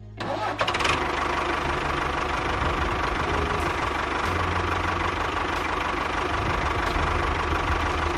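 A small electric motor running steadily with a whir, starting about half a second in.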